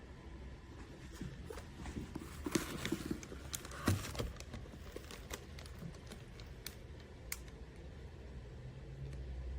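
Handling noise: scattered small clicks and rustles, busiest in the first half, with one sharper knock about four seconds in, over a low steady hum.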